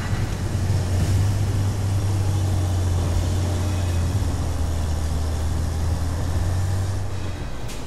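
An engine running steadily with a low hum under a noisy hiss.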